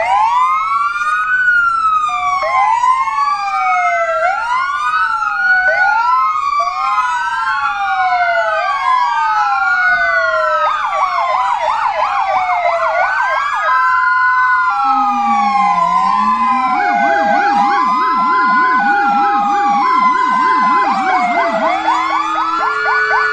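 Sirens of several fire engines sounding together, starting suddenly in overlapping rising-and-falling wails. About halfway through, a two-tone hi-lo and a fast yelp join in. It is a memorial siren salute for a deceased firefighter, not a call-out.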